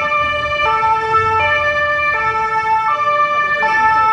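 German two-tone siren (Martinhorn) of an approaching Red Cross ambulance, switching between a high and a low tone about every three-quarters of a second.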